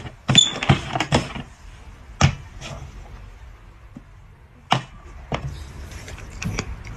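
Small hard cups knocking on a tabletop board as they are set down and shuffled in a shell game. Three knocks come close together in the first second or so, then single knocks spaced a second or so apart.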